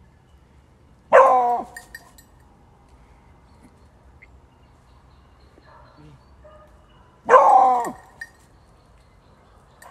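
Hunting hound barking twice, about six seconds apart, each bark a short loud call of about half a second that drops in pitch.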